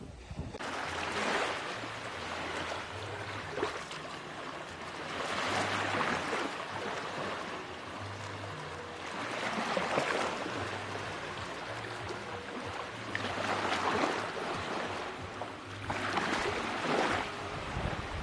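Sea waves breaking on a beach. The surf rushes in and falls back about five times, every three to four seconds.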